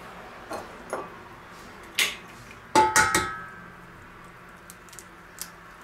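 Eggs knocked against a stand mixer's stainless steel bowl to crack them open: a few light taps, then a cluster of sharp knocks about three seconds in that set the metal ringing briefly, followed by soft ticks of shell.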